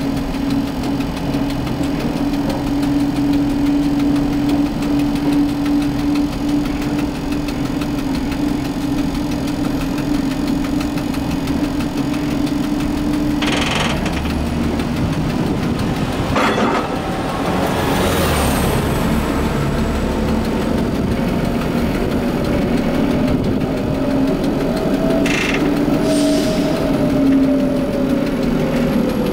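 1960 Standard streetcar (Bern series 621–630) running on its rails, heard from the driver's cab: a steady motor hum with wheel-on-rail noise, a few sharp clacks around the middle and once more later, and a whine that rises and then falls near the end.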